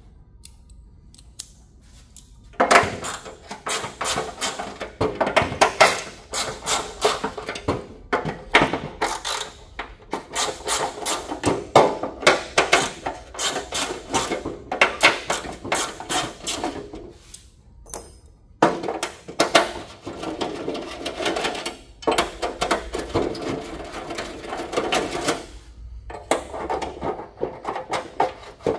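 Mini ratchet with a hex extension loosening the screws of a plastic side panel: runs of rapid clicking broken by short pauses, starting about three seconds in.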